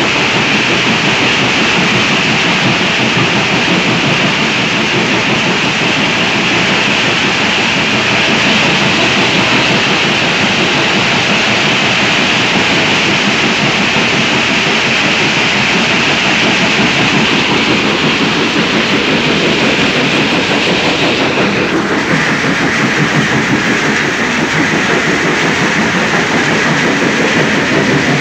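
Two Nandhi jaw crushers running and crushing rock fed down a chute, a loud, steady, dense rattle and clatter of stone and machinery. About three-quarters of the way in the noise shifts slightly lower in tone.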